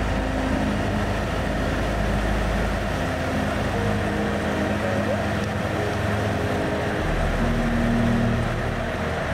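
Car engine and tyre noise heard from inside the cabin while driving along at a steady speed, a low hum that shifts in pitch a couple of times.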